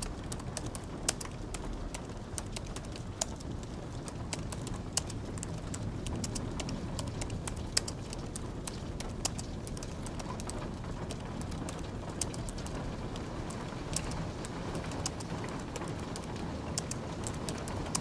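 Typing on a low-profile keyboard: quick, irregular key clicks with a few louder taps, over a steady hiss of light rain ambience.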